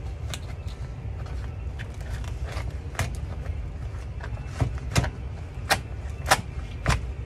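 A blade being forced lengthwise through the hard shell of an ornate spiny lobster, giving a run of sharp cracks and crunches that grow louder and come about every half second in the second half, over a steady low hum.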